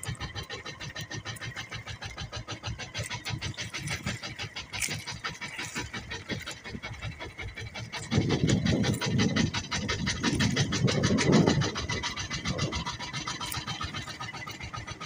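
Small engine of an outrigger fishing boat running steadily with an even, rapid putter. About eight seconds in, a louder low rumble rises over it for some four seconds, then eases.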